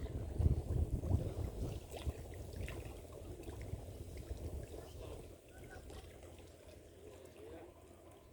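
Wind buffeting the microphone, a low rumble that is strongest in the first few seconds and then eases off to faint outdoor ambience.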